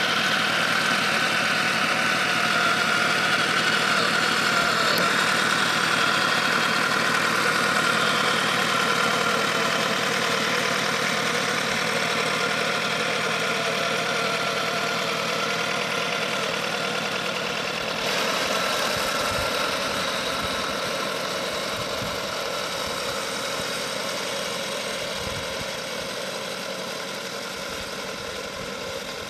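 3D-printed model IS-1 tank driving over grass: a steady mechanical running sound with a held whine, slowly fading as the tank moves away.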